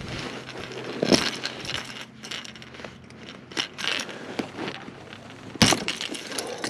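Clicking, clinking and knocking of a hooked crankbait and metal fishing pliers being handled while unhooking a bass, with a louder knock about a second in and the loudest near the end.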